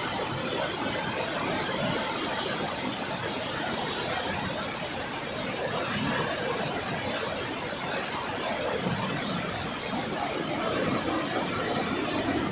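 River water rushing through a rocky gorge: a steady, unbroken rushing noise.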